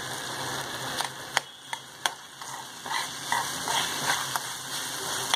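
Onions, soaked moong dal and green chilli sizzling in hot oil in a kadhai, with a steel slotted spoon scraping and clicking against the pan as they are stirred. The sizzle is steady; the sharp spoon clicks start about a second in and recur several times.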